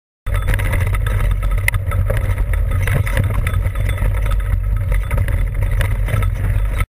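Wind buffeting the camera microphone with a loud, steady low rumble, mixed with the rattle and clatter of a mountain bike riding fast over a rocky dirt trail. The sound starts and cuts off abruptly.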